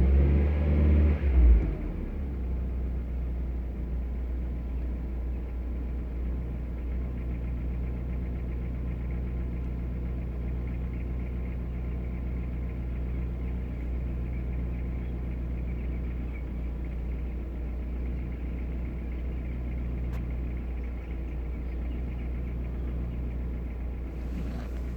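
Mitsubishi 4B10 1.8-litre four-cylinder engine, heard from inside the cabin, revved briefly in the first couple of seconds and then idling steadily. It is not yet fully warm, and the owner reports a knock from it at idle in this state.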